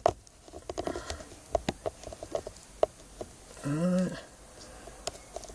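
Light clicks and taps of a mobile phone being handled and seated in a plastic dashboard mount, scattered irregularly. A man gives a short hum about two-thirds of the way through.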